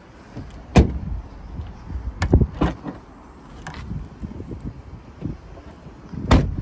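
Four sharp thumps and clunks of a Citroën DS4's rear door and tailgate being worked. The loudest comes about a second in and another near the end, with two quicker clunks in between.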